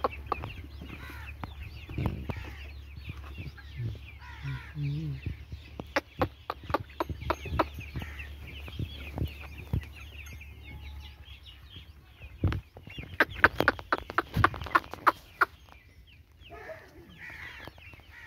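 A flock of chickens clucking and calling. Scattered sharp clicks and taps run through it, densest and loudest from about twelve to fifteen seconds in.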